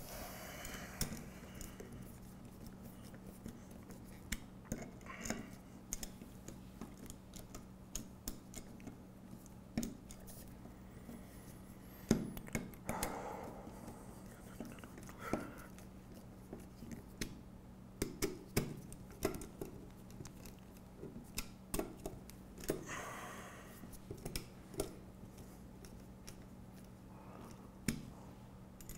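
Hex screwdriver tightening screws into metal brackets on an aluminium extrusion chassis: scattered small metallic clicks and taps, a few of them louder, over a faint steady hum.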